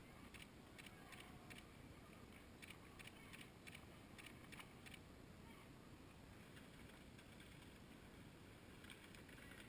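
Near silence: a faint low rumble with scattered, irregular soft ticks.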